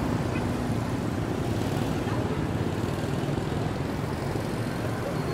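Steady road traffic: the engines of passing vehicles make a continuous noise, with no single event standing out.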